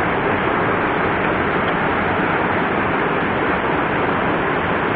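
Steady rushing of a fast-flowing mountain stream running high, an even noise at a constant level.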